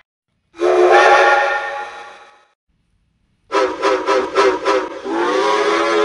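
Multi-toned train whistle sounding a chord: one blast that fades out, then after a short pause a rapid string of about six short toots, then a long blast that slides up in pitch as it starts.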